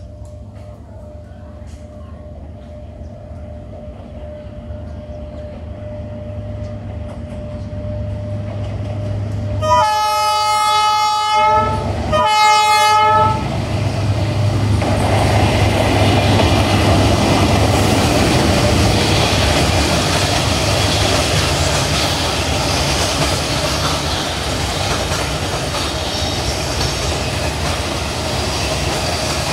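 D19E diesel-electric locomotive approaching, its engine rumble growing louder, then sounding a multi-tone horn twice about ten seconds in: a longer blast, then a shorter one. The locomotive passes and a string of freight wagons rolls by with a steady clatter of wheels on rail.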